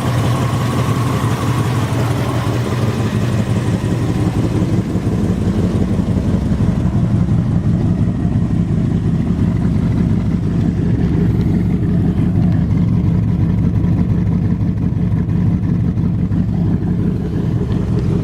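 Rebuilt Ford 289 V8 running steadily through a brand-new dual exhaust with Monza tips, with a deep, even exhaust note.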